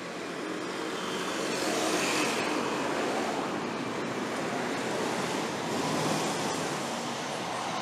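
City street traffic: a steady hiss of road noise, with passing vehicles swelling up about two seconds in and again about six seconds in.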